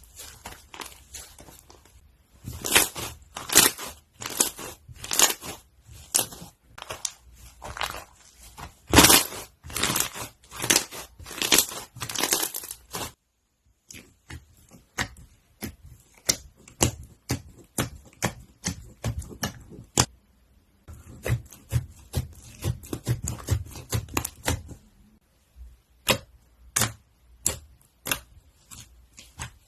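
Crunchy slime being squeezed and pressed by hand, giving dense runs of crackling and popping clicks, broken by a couple of brief pauses.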